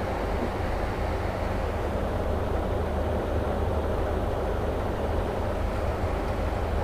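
A steady low rumbling background noise, even and unbroken, with no distinct eating sounds standing out above it.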